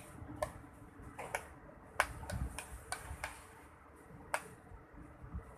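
Scattered sharp clicks and taps from handling slime-making things, irregular and about a dozen in all, the loudest about two seconds in and again just past four seconds, over a low rumble of handling.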